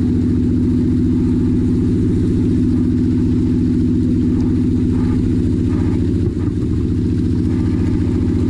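Engine on a fishing boat running steadily with an even, rapid pulse.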